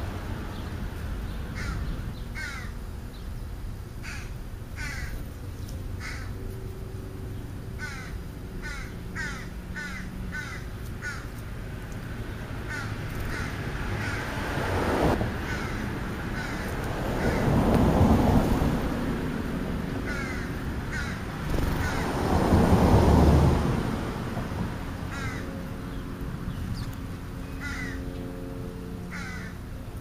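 Crows calling, a scattered series of short caws. Two swells of low rumbling noise, each a couple of seconds long, rise and fade a little past halfway and again about three-quarters through.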